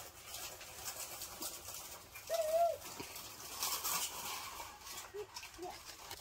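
Baby macaque cooing: one short, clear call about two seconds in, then a few fainter, softer calls near the end.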